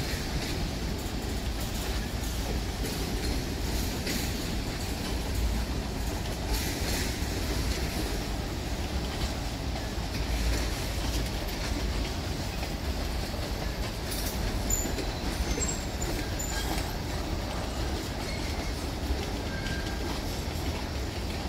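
Freight cars of a long mixed freight train (boxcars, covered hoppers and tank cars) rolling steadily past, their steel wheels giving a continuous low rumble on the rails with occasional clanks.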